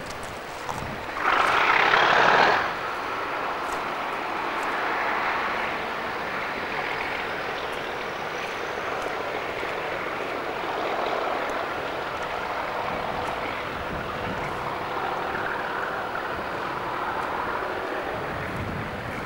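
Diesel locomotive running with a steady drone and a faint whine. A brief loud rush of noise breaks in about a second in.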